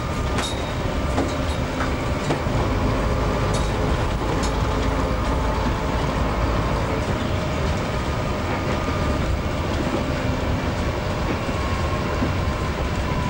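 Steady engine and road noise heard from inside a moving double-decker bus, with rattles and clicks from the body and a faint whine that slowly drops in pitch near the end.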